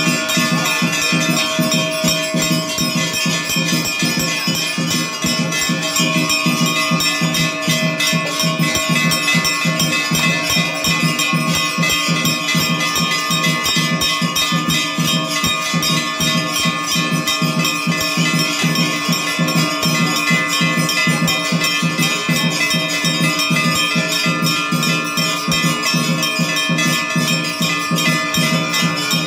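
Large brass temple bells rung over and over, their ringing overlapping into a continuous clangour, over a fast, even pulse.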